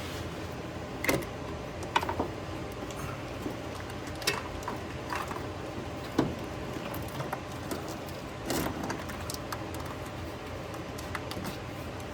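Plastic wiring-harness connectors being handled and plugged onto the engine's ignition coils: scattered short clicks and rattles, about six of them, over a steady low hum.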